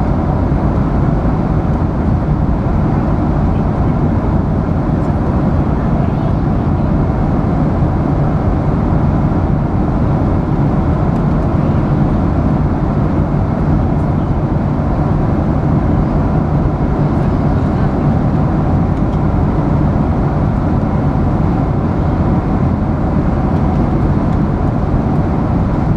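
Airliner cabin noise in flight: a loud, steady low noise of the engines and the air rushing past the fuselage, unchanging throughout.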